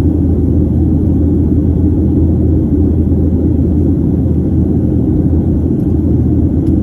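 Steady low rumble of a Boeing 737's engines and airflow in flight, heard inside the cabin at a window seat over the wing.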